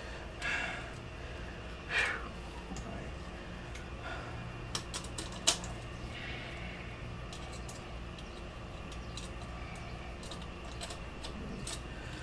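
Small metal clicks and taps as license-plate screws, hardware and the plate are handled and fitted to a motorcycle's plate bracket, a few sharp ticks standing out in the middle, over a steady low hum.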